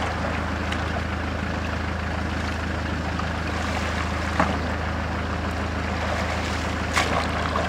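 River water flowing, over a steady low hum, with two brief knocks about four and seven seconds in.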